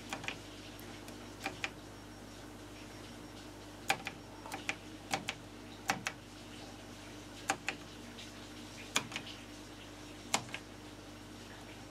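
Computer-controlled push-button switches on a Philips PM5570 video signal generator being pressed one after another, each giving a sharp mechanical click, some in quick pairs, about one a second. A steady low hum runs underneath.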